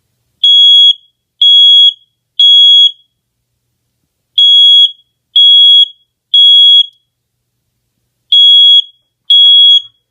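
Battery-powered First Alert smoke detector being tested, sounding its alarm in the temporal-three (code 3) pattern: loud, high-pitched beeps of about half a second each in groups of three, with a pause between groups. Two full groups sound, and a third begins near the end.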